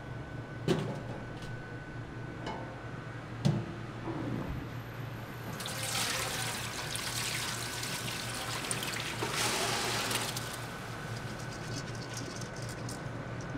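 Water pouring from a steel bowl of soaked rice into a colander in a stainless-steel sink, a rushing splash for about five seconds in the middle. Two sharp knocks come before it, and light scraping and ticks near the end as the wet rice is tipped in. A steady low hum runs underneath.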